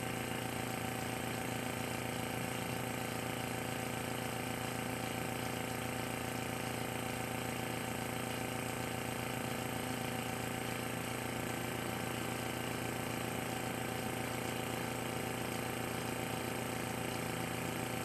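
Small electric air compressor pump running steadily with an even hum, pumping air into a well-water aeration tank and building pressure in it.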